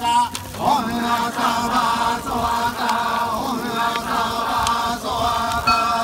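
Shugendō yamabushi chanting a Buddhist chant of the goma fire rite together, several voices held on long, drawn-out pitches.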